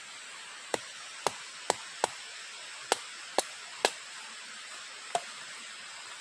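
Eight sharp knocks at uneven intervals, the last one weaker, over a steady hiss.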